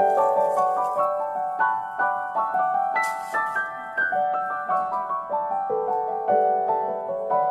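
Background music: a piano playing a melody of short notes.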